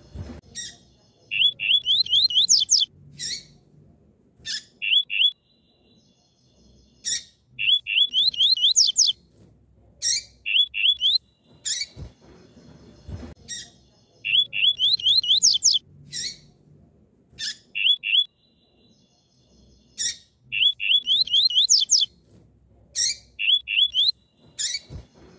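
Female double-collared seedeater (coleiro) calling: sharp high chirps and quick runs of short notes that climb into rising sweeps. The same sequence comes round about every six seconds.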